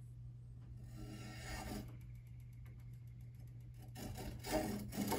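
Faint scraping of a hardened bamboo stick drawn along the freshly sharpened edge of a hand scythe blade, shaving curls off the bamboo. There are a few strokes, and the louder ones come near the end.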